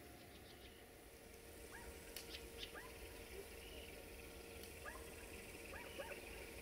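Faint, short animal calls, a few at a time from about two seconds in, over a quiet outdoor background.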